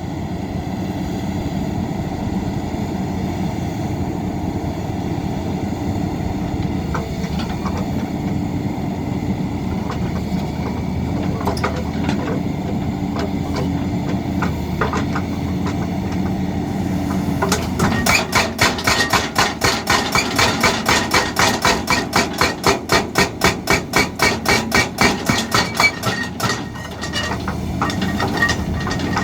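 Excavator engine running steadily. Just over halfway in, a fast, regular hammering starts, about four sharp strikes a second, lasting several seconds, then a few more strikes near the end.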